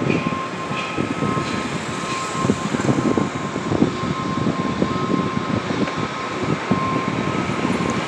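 Construction work noise: a steady machine drone with irregular knocking and clatter through it, and a thin high tone that cuts in and out.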